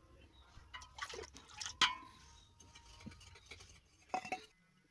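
Metal kitchen utensils clinking against a cooking pot: a few light clicks and one sharp clink with a brief ring about two seconds in, over a faint low hum that stops near the end.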